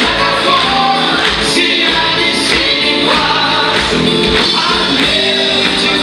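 A live pop-rock band, a Soviet-style vocal-instrumental ensemble with electric guitars, bass and drums, playing a song while several voices sing together.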